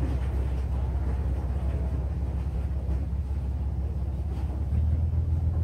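A low, steady engine drone, its pitch and level stepping up slightly about five seconds in.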